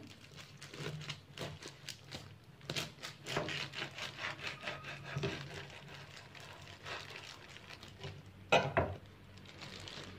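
Cleaver cutting through a plastic-wrapped bundle of enoki mushrooms on a wooden cutting board: crinkling plastic and short knife strokes against the board, with one louder knock near the end.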